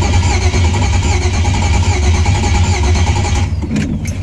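Chevy 5.3 LM7 V8 in the swapped Dodge Dakota firing on its first start under new Holley Terminator X fuel injection, then running loudly. A brighter, higher layer over the engine stops about three and a half seconds in, while the engine's low running note carries on.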